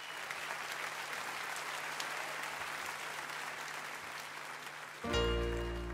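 Applause from a crowd as a steady crackling patter. About five seconds in, a music track with sustained piano-like notes starts suddenly.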